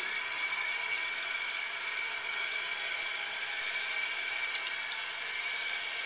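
Fill valve of a 1974 Kohler Cayuga toilet slowly refilling the tank: a steady hiss of inflowing water with a constant high whistle.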